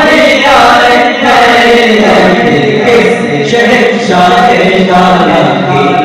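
Male voices chanting a devotional naat into microphones, several voices together, sung continuously over an amplified sound system.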